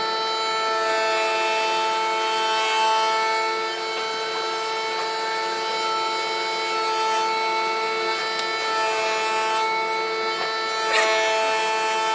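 A machine running steadily, with a whine made of several fixed tones that holds unchanged throughout. A couple of light knocks come on top, about three seconds in and near the end.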